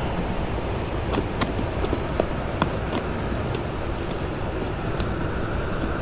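Wind buffeting the camera microphone, a steady low rumble, with a few light clicks and taps scattered through it.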